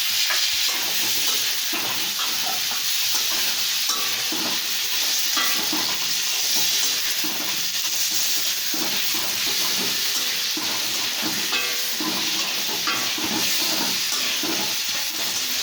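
Potato pieces and chopped tomato frying in hot oil in a pan, sizzling steadily while being stirred, with many short scraping sounds through the hiss.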